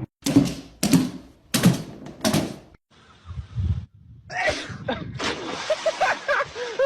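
Four loud bangs, about three-quarters of a second apart, like a door being struck or slammed, followed by duller low thumps and then wavering, higher pitched cries near the end.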